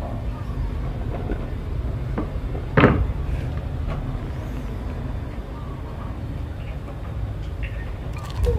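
Pot of sour cabbage soup at a rolling boil on the stove, a steady low rumble, with one sharp knock about three seconds in.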